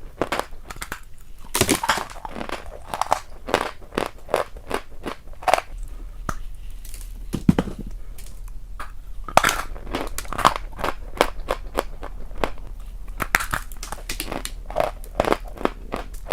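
A person chewing crisp, crunchy food, with irregular crunches coming several times a second.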